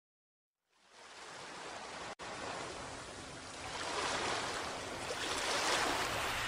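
Steady rushing hiss that fades in about a second in after digital silence, with a brief dropout a little after two seconds, and grows slowly louder toward the end.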